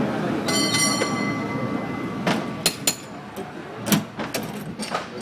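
San Francisco cable car rumbling and rattling along its track. About half a second in a high metallic ring sounds for about a second and a half, followed by several sharp clanks.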